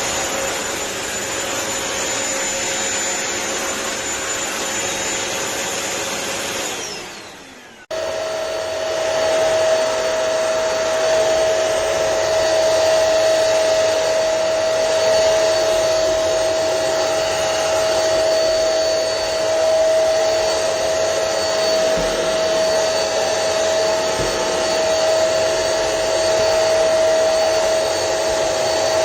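BISSELL CrossWave wet-dry floor cleaner's motor running steadily, then winding down with a falling whine about seven seconds in. It starts up again abruptly about a second later and runs on with a steady, slightly higher whine.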